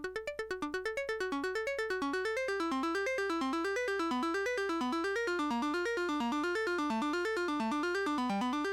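Eurorack modular synthesizer playing a fast sequenced run of notes, about eight a second, rising and falling in pitch, each note shaped by a Frequency Central CEMvelope ADSR envelope. About a second in, the notes change from short and plucked to longer and smoother, running into one another as the envelope is opened up.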